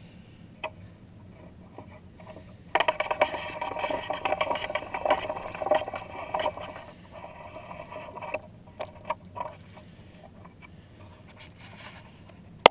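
Scraping and rattling for about six seconds, starting about three seconds in, followed by a few scattered clicks and knocks.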